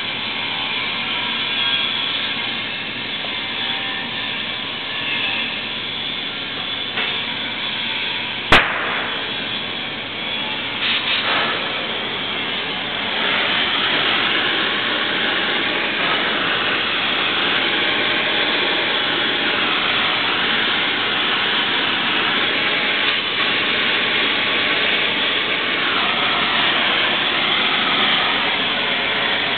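Oxy-fuel cutting torch cutting a steel structural beam. A single sharp pop about a third of the way in as the torch lights, then from about halfway a louder steady hiss of the cutting flame and oxygen jet.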